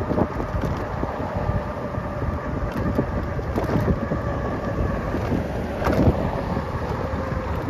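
Wind buffeting the microphone of a camera carried on a moving bicycle, a steady low rumble with a faint steady hum and a few light knocks from the ride.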